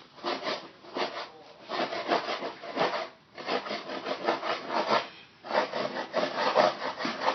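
A blade is chiseling and scraping at the bed where a broken tile was removed, in rapid rasping strokes. The strokes break off briefly about three seconds in and again about five seconds in.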